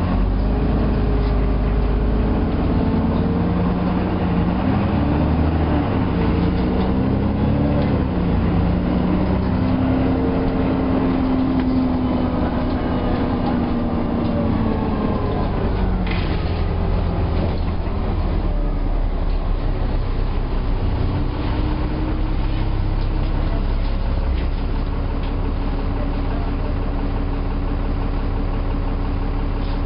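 Alexander Dennis Enviro400 double-decker bus running, its engine and drivetrain note gliding up and down in pitch through roughly the first half. After a short click about halfway through, it settles into a steadier hum.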